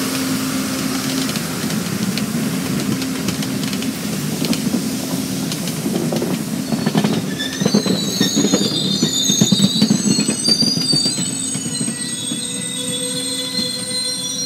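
Amtrak passenger cars rolling past on a curve: a steady rumble of wheels on rail, with rapid clicking over the rail joints and a high-pitched wheel squeal setting in about halfway through.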